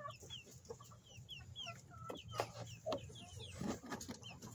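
Chickens clucking quietly, over a string of short, high, falling chirps repeating several times a second, with scattered light clicks and rustles as hands feel through the nest shavings and eggs under a broody hen.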